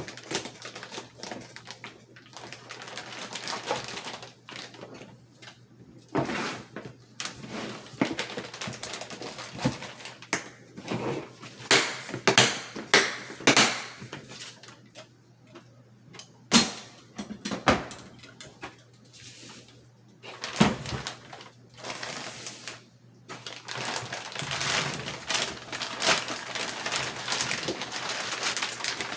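Handling noise from unpacking: clear plastic bags crinkling and rustling, with scattered sharp knocks and clicks from hard plastic parts and the rifle case. The crinkling becomes denser over the last several seconds.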